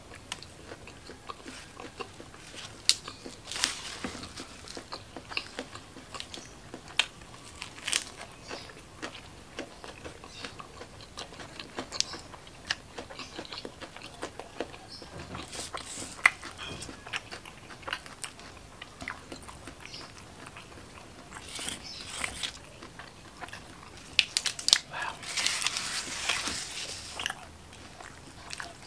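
Close-miked eating sounds: chewing and biting on mouthfuls of rice and spicy shrimp, with many scattered sharp clicks and smacks. A denser stretch of crunching comes near the end.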